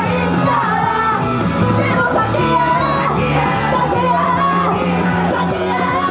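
Live idol-pop performance: a female idol group singing into handheld microphones over loud rock-style backing music, with fans shouting along.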